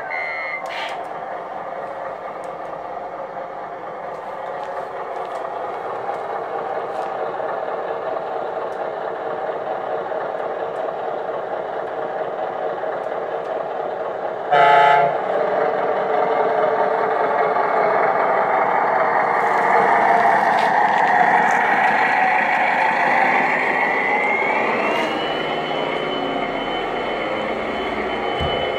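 Radio-controlled Mercedes-Benz tipper truck model driving, its sound module playing a steady simulated truck engine. One short horn blast comes about halfway through, and a rising whine that then holds steady comes near the end.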